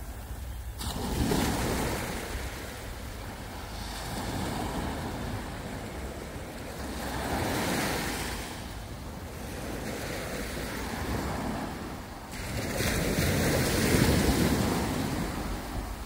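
Small waves breaking and washing up a sandy beach, swelling and receding every few seconds, the loudest surge near the end. A steady low rumble runs underneath.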